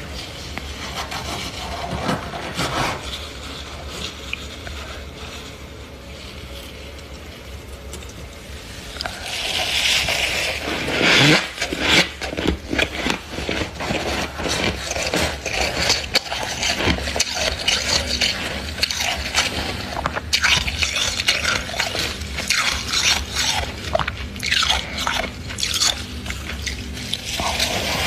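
A hand scraping and grabbing soft, fluffy freezer frost grown from a humidifier, making a dense, irregular crunching and crackling. It is sparse at first and becomes louder and busier about nine seconds in.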